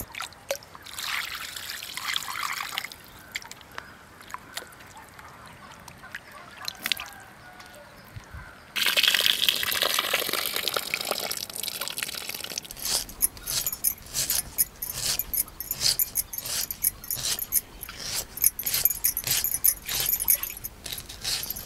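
Water poured from a jug over raw chicken pieces in a metal pan, then splashing and sloshing as the chicken is rubbed and rinsed by hand. Over the second half, a run of sharp, irregular clicks and snaps from a small knife peeling and cutting onions.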